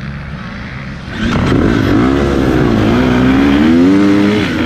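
Four-stroke engine of a KTM 250 XCF dirt bike running low and steady, then about a second in suddenly revving hard as the bike launches. The pitch climbs, drops and climbs again as it shifts up through the gears, with other dirt bikes accelerating close by.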